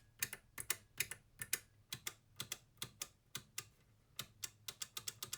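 Rapid, irregular clicking, about three to four sharp clicks a second: the BST-938 soldering station's newly refitted push buttons being pressed over and over to test them.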